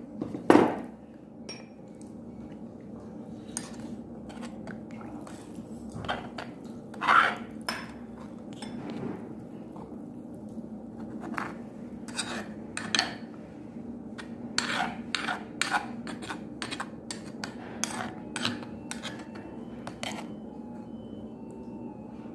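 Metal spoon clinking and scraping against a stone pot (dolsot) while stirring rice soaked in water. Irregular taps and knocks, a few louder ones, over a steady background hum.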